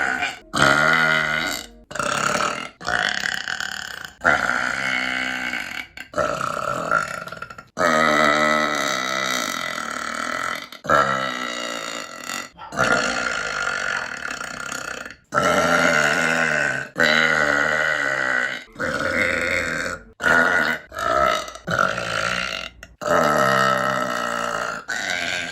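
A woman burping loudly: a rapid series of long, drawn-out burps, about a dozen or more, each cut off abruptly into the next.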